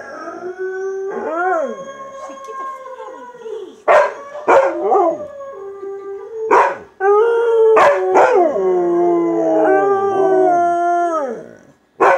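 A dog howling in long, drawn-out notes that slide up and down in pitch, broken by a few short, sharp barks in the middle.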